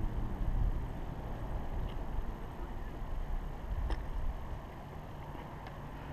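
Low wind rumble on the camera microphone over open water, with a couple of faint knocks about two and four seconds in.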